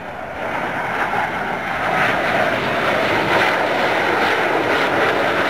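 Jet noise from a close formation of three Northrop F-5 Freedom Fighters flying past, each powered by twin General Electric J85 turbojets. The noise grows louder over the first couple of seconds, then holds steady.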